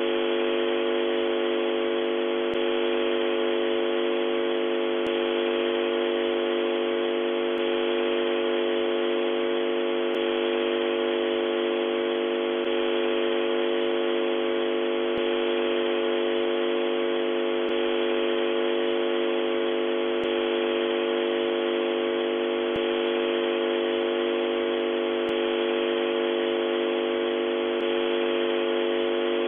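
Radio transmitter noise: a steady static hiss squeezed into a narrow, telephone-like band, with several constant humming tones under it and a faint click about every two and a half seconds.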